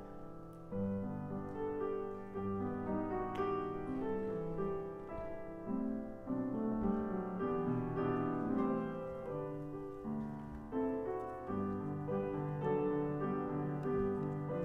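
Slow, gentle piano music: sustained chords with a melody above them, playing as a church prelude.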